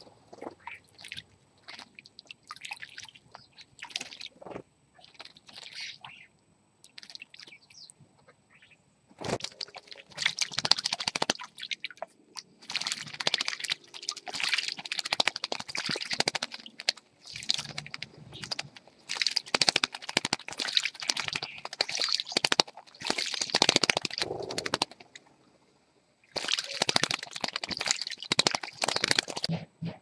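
Starling and house sparrow bathing in a shallow pond, flicking their wings and throwing up water: scattered small splashes at first, then near-continuous splashing in bursts from about nine seconds in, with short pauses.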